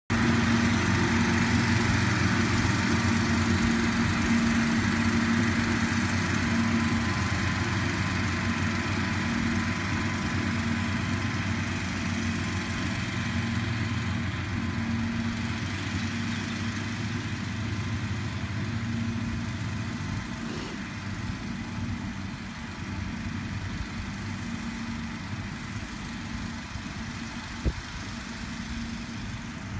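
A John Deere tractor pulling a red mower and a red ride-on mower running steadily as they cut the grass, their engine hum slowly fading as they move away. A single short knock near the end.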